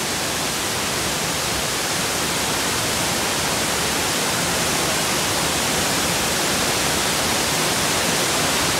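Waterfall pouring over a rock ledge into a pool: a steady rush of falling water that slowly grows a little louder.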